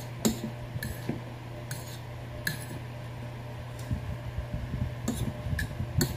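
A metal fork clinking and scraping against a plate of pancit noodles, a handful of short sharp clicks spread through. A cluster of softer chewing and slurping noises from a mouthful of noodles comes about four seconds in, over a steady low hum.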